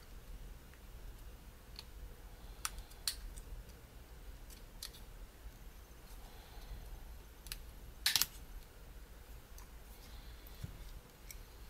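Scattered small clicks and taps from the plastic body of a Panasonic Lumix DMC-TS30 compact camera being handled during disassembly. The loudest is a quick cluster of clicks about eight seconds in.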